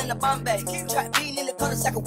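Background hip-hop style music with vocals over a steady beat and bass line.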